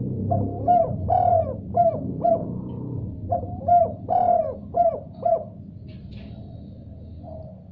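Spotted dove cooing: two runs of short coos, each note dropping in pitch, over a steady low hum, fading out about five and a half seconds in.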